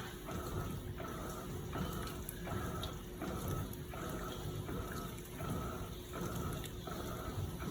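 Electrolux LPE16 washing machine washing a load of blankets: water swishing in the tub with a regular pulse about every two-thirds of a second.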